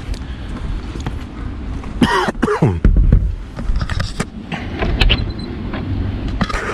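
Low rumbling wind on the microphone with scattered knocks, and a single loud squeal about two seconds in that falls steeply in pitch.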